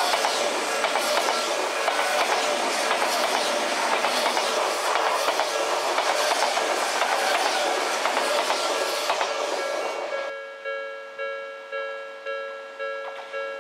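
Odakyu electric train passing over a level crossing, its wheels clattering over the rails while the crossing alarm rings. The train noise cuts off about ten seconds in, leaving the alarm's repeating electronic ding, about one and a half strokes a second.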